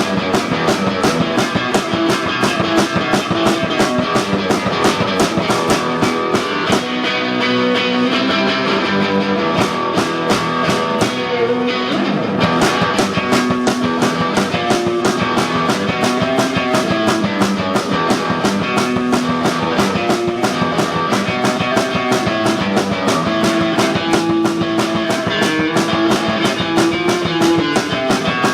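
Live punk rock music: distorted electric guitar over fast, driving drums. The drums thin out from about seven seconds in and come back in full about twelve seconds in.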